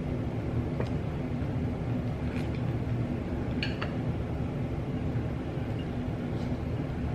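Steady low background hum with a few light clicks and taps from tableware being handled as eating begins, the sharpest near the middle.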